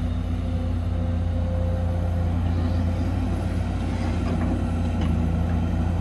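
Heavy diesel engine of earthmoving machinery running steadily with a constant low drone.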